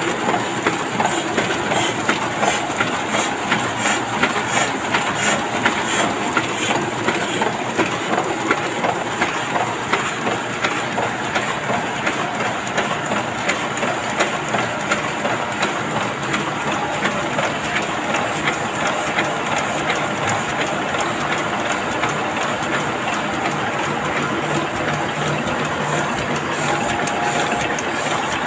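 Heidelberg two-colour offset printing press running, a dense mechanical clatter with a regular beat of about two strokes a second, strongest in the first half.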